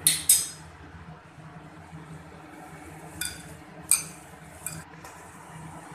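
A glass mixing bowl clinking as it is knocked: two sharp clinks at the start, then a few more about three and four seconds in, while crumbled paneer is worked in it by hand.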